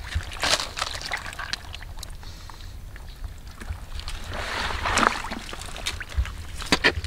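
Hands sloshing and splashing in shallow muddy water, with a louder wet splash about two thirds of the way through and a few sharp knocks near the end.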